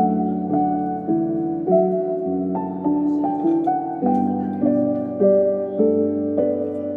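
Slow, gentle instrumental background music: a melody of struck or plucked notes, a new note about every half second, over held lower notes.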